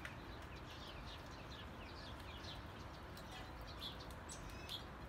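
Small birds chirping and twittering in quick short notes, several a second, over a steady outdoor hiss.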